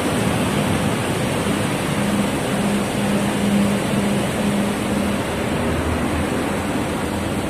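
Steady roar of city traffic, with a low engine hum that comes in about two seconds in and fades a few seconds later.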